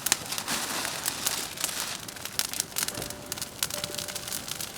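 Bonfire burning, with irregular sharp crackles and pops over a steady hiss.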